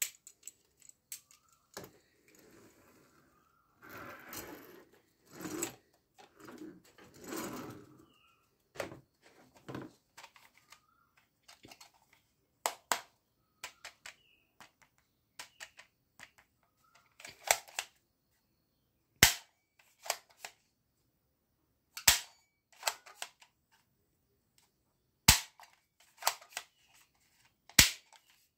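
Plastic toys handled and rattled, then a plastic toy pump-action shotgun worked by hand. Its action gives a series of sharp snaps, the loudest four about three seconds apart in the second half.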